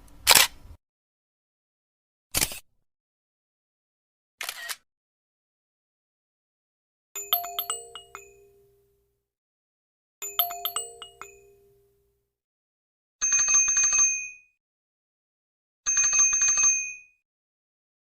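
A few short, sharp sound effects, then a wind-chime style jingle of several ringing bell tones played twice, then a bicycle bell rung in a quick trill, twice.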